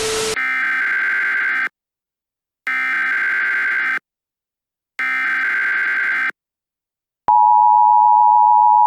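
Emergency Alert System broadcast tones: a brief burst of static cuts off, then three evenly spaced bursts of SAME header data tones, each a harsh digital screech of about a second and a half with short silences between. About seven seconds in, the steady two-tone EAS attention signal begins and holds.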